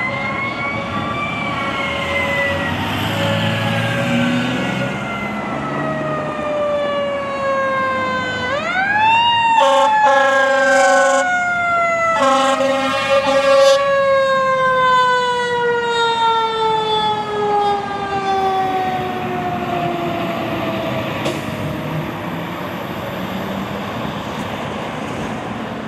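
Fire truck siren wailing: its pitch falls slowly, rises quickly again about eight seconds in, then slowly falls away. Two long horn blasts about ten and twelve seconds in are the loudest sounds.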